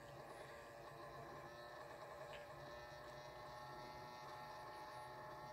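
Near silence: a faint steady electrical hum made of several thin high tones, with one faint tick about two seconds in.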